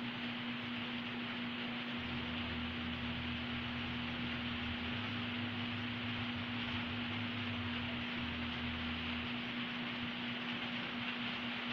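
Steady background hiss with a constant low hum, and a faint low rumble through the middle.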